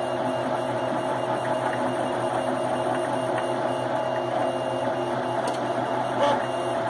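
3D printer printing a part: its motors make a steady whirring hum with several held tones.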